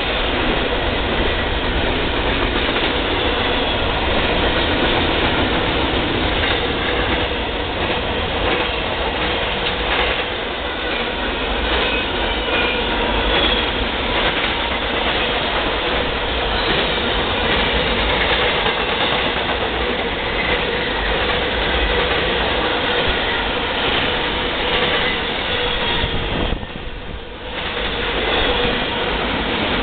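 Freight train cars rolling past: double-stack container cars and then empty well cars, their steel wheels clattering steadily over the rail, with a thin wheel squeal running under it. The noise dips briefly near the end.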